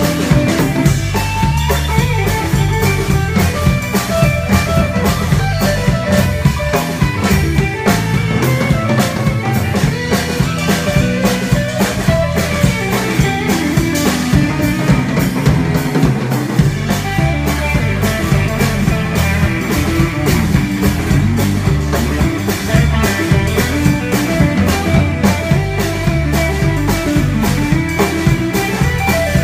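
Live rock band playing: drum kit with a steady beat of drum and cymbal hits, electric guitar lines and bass, picked up close to the stage.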